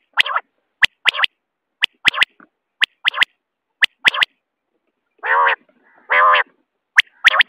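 Common quail calling: short, sharp rising notes in groups of three, about once a second. Around five and six seconds in come two longer, lower, buzzy notes, then the sharp groups return near the end.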